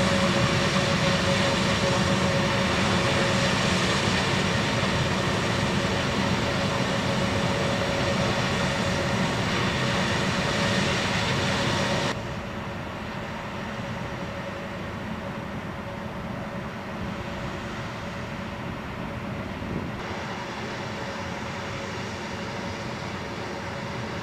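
A-10 Thunderbolt II jets taxiing, their twin TF34 turbofan engines running at taxi power with a steady jet noise and a held whine. About halfway through the sound suddenly becomes quieter and duller. The higher whine returns near the end.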